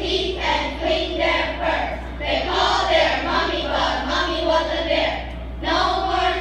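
A group of children singing together in unison over a steady low hum.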